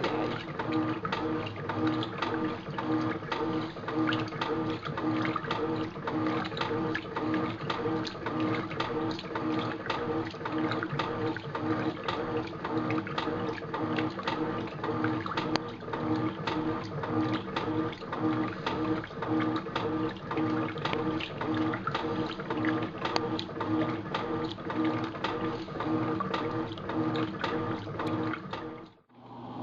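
Electrolux top-loading washing machine running its wash, the motor and drum giving a steady hum with a dense, fast rattle and clicking over it. The machine's bearings are blown, according to its owner. The sound cuts off abruptly near the end.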